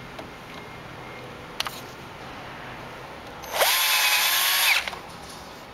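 Bench drill motor starting up with a quickly rising whine and running for about a second, driving a 10-32 thread-forming screw on a T20 Torx bit into a plain drilled hole in metal. The screw forms its own thread as it goes in. A short click comes before it.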